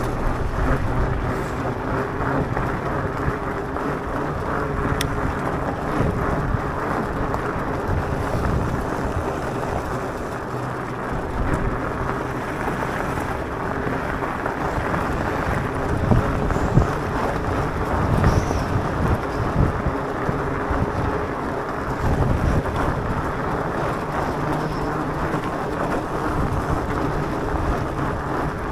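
Electric mountain bike riding over a gravel road: a steady rumble of tyres on gravel mixed with wind buffeting the microphone, with a few sharper knocks from bumps around the middle.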